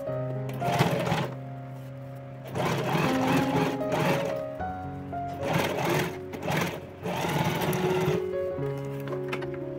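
Domestic electric sewing machine stitching a zipper onto a fabric lining, running in several short spells with brief pauses between, over background music.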